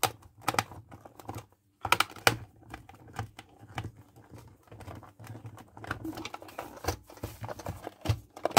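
Irregular clicks and taps of a screwdriver working a screw deep in the plastic housing of an old hand mixer, with the housing being handled and knocked on the table.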